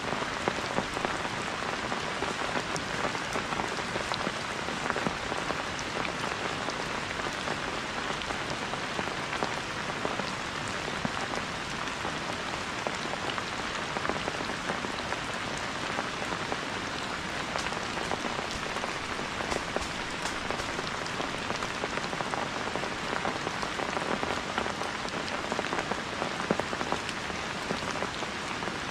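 Steady heavy rain falling, with a dense scatter of individual drop hits.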